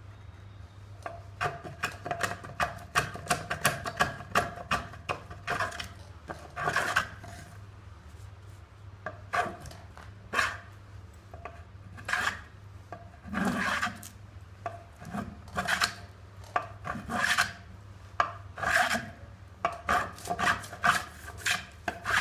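Hand plane shaving a pine log: a quick run of short scraping strokes, then slower, longer single strokes, each a dry rasp of the blade cutting across the wood.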